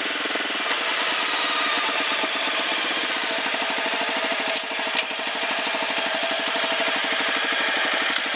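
Motorcycle engine running steadily while riding, its firing pulses even throughout, with a rush of wind and road noise over it. A brief dip and a click about halfway through.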